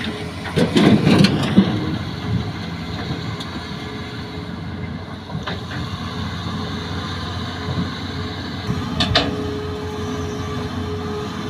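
Hitachi crawler excavator's diesel engine running steadily under load. About half a second in, a bucketful of soil and rock drops into a steel dump truck bed with a loud clatter lasting about a second. About nine seconds in, there is a shorter knock and scrape as the bucket digs into the earth bank.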